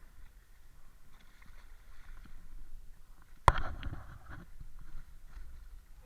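Water and wind rushing past a Mirror dinghy sailing fast. One sharp knock about halfway through is the loudest sound.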